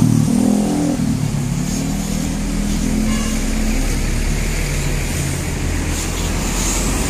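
Large coach's diesel engine pulling away, a steady low rumble with an engine note that rises and falls as it accelerates.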